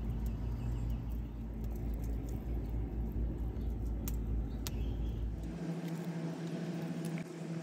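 Open wood fire burning: a steady low rumble with a couple of sharp crackles. About three-quarters of the way through, the rumble cuts off and a steady low hum follows.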